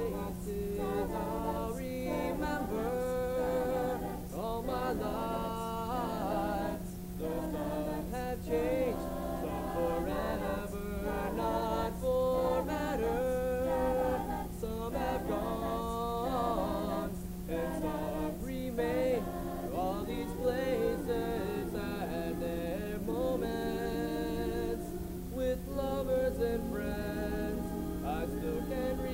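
Voices singing a cappella, with a steady low hum underneath throughout.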